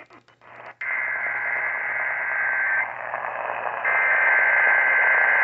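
EAS SAME header data bursts, the warbling two-tone digital screech of the Emergency Alert System, heard through AM radio static. After a brief crackly lull there are two bursts, the second starting a second after the first ends. They mark the start of a Required Weekly Test sent just after the AMBER alert relay.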